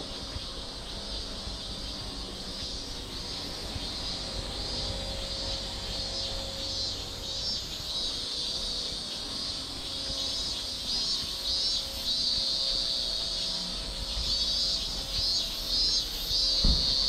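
Cicadas buzzing in a dense, high, pulsing chorus that grows louder through the second half, with a single low thump near the end.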